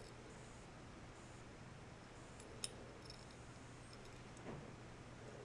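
Near silence: faint room hum, with one short, light click about two and a half seconds in.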